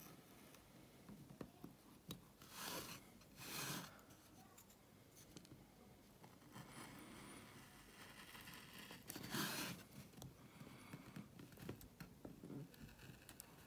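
Hand carving gouge slicing into wood to clear the background around a relief design: a few faint, short cutting strokes, two about a second apart after roughly three seconds and a third after about nine seconds.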